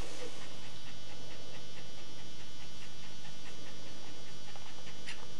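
Dog in labour panting quickly and evenly, about four short breaths a second, over a steady low hum, with one sharp click near the end.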